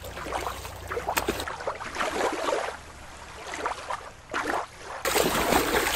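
Shallow water lapping at a rocky shoreline. About a second and a half in it cuts to a killer whale splashing in a show pool, and the shore water sound comes back shortly before the end.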